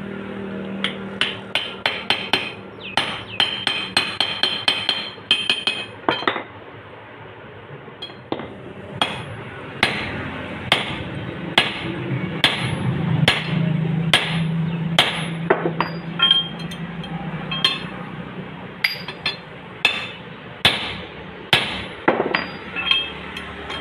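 Hammer blows on steel as a motorcycle crankshaft and connecting rod set is driven together on a steel block, each strike ringing metallically. A quick run of blows comes first, then slower single blows about one a second.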